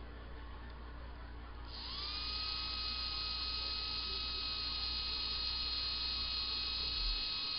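Small electric motor spinning up to a steady high whine about two seconds in and running at constant speed, over a low electrical hum.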